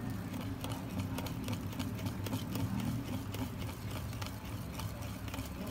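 Wire whisk stirring flour into egg, sugar and oil in a ceramic dish: quick, irregular light clicks and scrapes of the wires against the dish, over a steady low hum.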